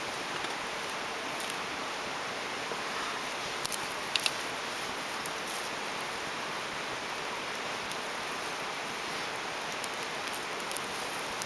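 Newly caught tinder bundle of dried grass and small twigs burning, with a few sharp crackles, a pair of them about four seconds in, over a steady hiss.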